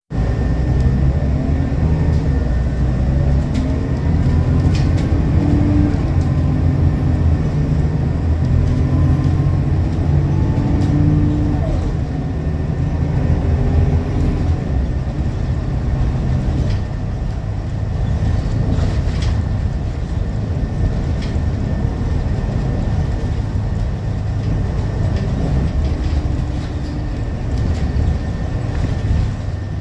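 Scania L94UB city bus's 9-litre five-cylinder diesel heard from inside the cabin, accelerating through the gears of its ZF Ecomat automatic gearbox. Its pitch climbs and drops back at each shift over the first twelve seconds or so, then it runs more steadily at cruising speed, with scattered clicks and rattles from the bus body.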